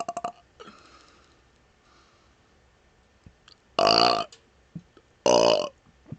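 A man burping on purpose: a long burp cuts off just after the start, then after a pause come two short, pitched burps about a second and a half apart, each lasting about half a second.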